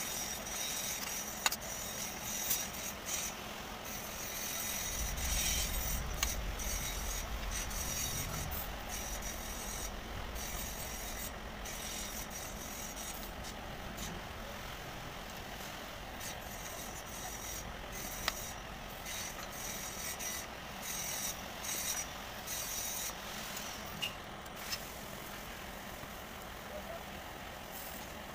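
Hand rubbing or abrading of brass sheet: an irregular scratchy hiss of strokes on metal with a few light clicks, and a low rumble from about five to nine seconds in.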